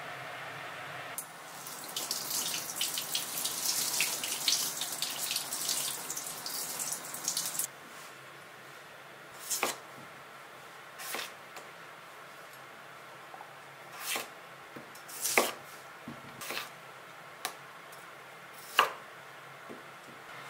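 Kitchen tap running and splashing into a sink for about six seconds, then stopping. This is followed by a knife cutting potato on a wooden cutting board: about seven separate thunks of the blade reaching the board.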